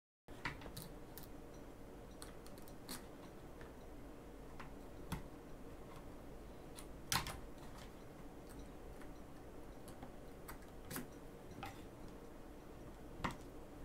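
Sparse small clicks and taps of a hex driver and plastic parts being handled on an RC truck's chassis, over a faint steady hum; the sharpest click comes about seven seconds in.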